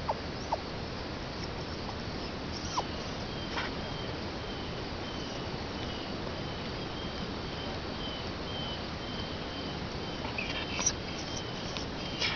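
Insects chirping outdoors in a faint, evenly repeating pulse over a steady hiss. A few sharp clicks are scattered through it; the two at the very start fit the metal mailbox door being shut.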